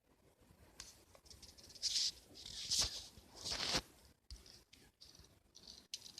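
Handling noise close to the microphone: a few short bursts of rustling and scraping, with a sharp click near the middle.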